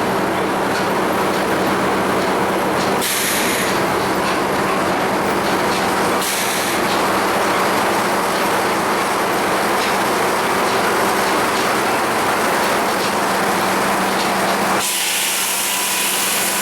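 Old sawmill machinery running with a steady rattling rumble and a constant low hum. Brief stretches of brighter hiss come about three seconds in, about six seconds in and near the end.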